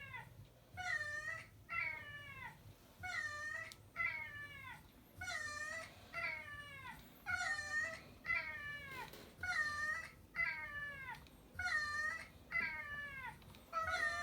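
Cat meows from a sound effect, repeating in a steady loop: two short, high-pitched meows about every two seconds, each pair alike.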